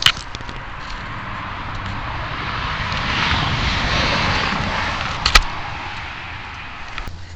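Distant engine noise passing by: a rushing sound that swells to a peak about four seconds in and then fades away. Sharp snaps come at the very start and again about five seconds in.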